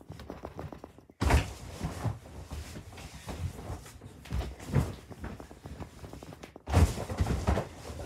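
Thumps, knocks and rustling of people moving and landing on an air mattress, with a sudden heavy thump about a second in and another near the end.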